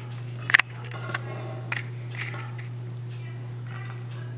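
A slotted plastic spoon knocking against a plastic bowl as cooked black beans are spooned in: one sharp clack about half a second in, then a few softer taps. A steady low hum runs underneath.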